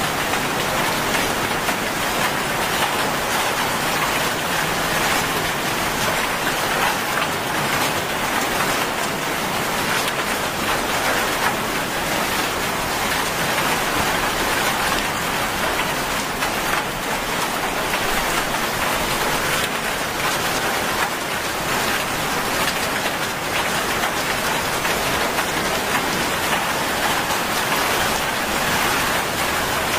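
Heavy rain falling steadily on a wet paved road and the plants beside it: a dense, even hiss of drops with no change in strength.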